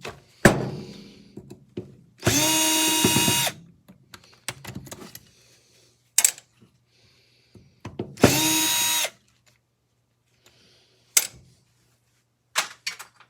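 Power drill running in two short bursts of about a second each, the second near the middle, as screws are backed out while dismantling a miter saw for scrap. Sharp clicks and knocks of metal parts being handled come between the bursts.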